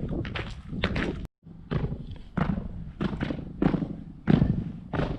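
A run of sharp thumps, several a second, each ringing on in the stone chamber of a Mycenaean tomb, with a brief break about a second in.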